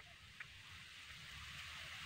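Faint steady hiss over a low rumble, swelling slightly. A nestling bird gives two short high chirps near the start.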